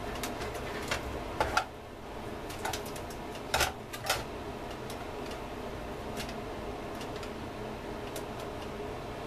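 Scattered light clicks and knocks of multimeter probes and hands against the open metal chassis and circuit boards of a welding inverter during a probe for a short circuit. The knocks come sharpest about one and a half seconds in and again around four seconds, over a faint steady hum.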